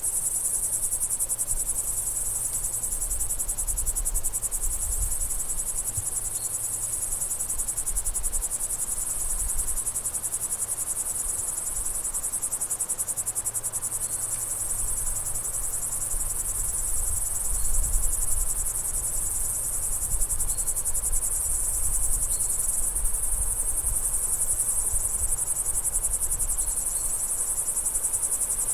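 A chorus of crickets chirping steadily in a rapid, high-pitched pulse. Underneath runs a low rumble that swells now and then, with a few faint short chirps higher up.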